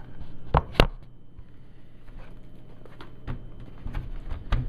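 Handling knocks as a laptop is turned over: two sharp knocks about half a second in, then a couple of softer bumps near the end.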